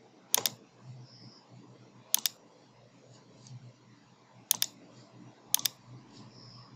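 Computer mouse button clicked four times, each click a quick double tick as the button goes down and comes back up, over a faint low hum.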